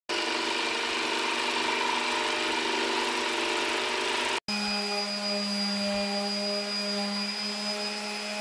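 Electric jigsaw cutting white melamine-faced particleboard, a steady buzzing cut. It stops abruptly about halfway through and is followed by a steadier, more even humming power tool working the edge of a board.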